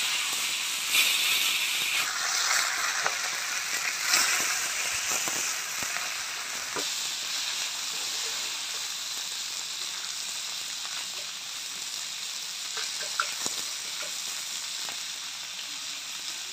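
Whole marinated tilapia (jilebi fish) shallow-frying in oil on a flat iron tawa: a steady sizzle with scattered sharp crackles of spattering oil. The sizzle is loudest for the first several seconds and settles lower after that.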